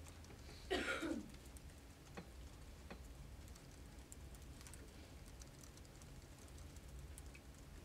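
Quiet room tone with faint, scattered clicks and taps, and a brief voice-like sound about a second in.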